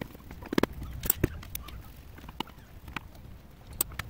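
Irregular clicks and knocks of a hand screwdriver working small cross-head screws out of a power drill's housing, with the tool and casing handled between turns.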